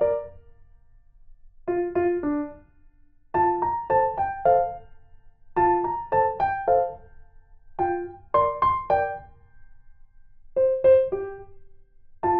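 Light background music: a piano-like keyboard playing short phrases of a few quick notes, with brief pauses between phrases.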